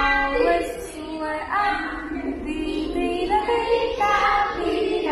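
A voice singing a melody in held notes, changing pitch from note to note.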